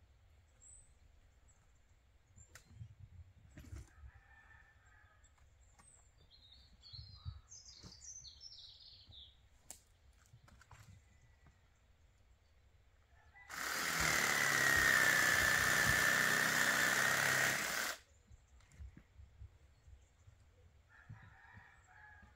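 Electric power saw cutting through timber for about four and a half seconds, its motor pitch sagging slightly under the load, then cutting off abruptly. Chickens cluck faintly before and after the cut, and a bird chirps a few times.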